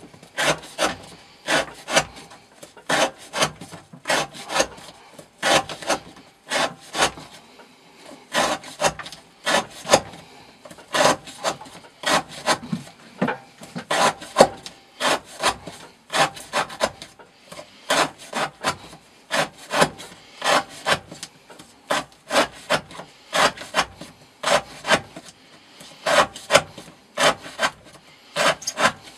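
Elmax steel knife blade slicing through rope in a run of short rasping strokes, about one to two a second, as in a rope-cutting edge-retention test.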